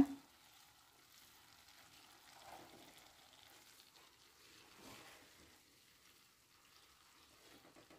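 Faint stirring of cooked rice in a metal pot with a wooden spoon, soft scraping and shuffling of the grains, a little louder about two and a half and five seconds in.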